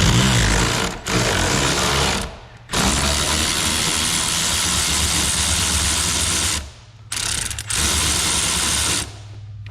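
Power tool driving a 15 mm socket on the brake master cylinder mounting nuts, run in five bursts with short pauses, the longest nearly four seconds; the nut is still tight and not yet coming loose.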